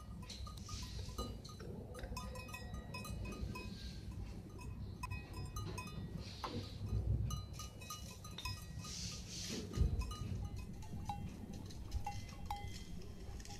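Livestock bleating in the background, with light clinks and knocks of miniature steel and clay cookware being handled and a low rumble of wind on the microphone; a single thump about ten seconds in.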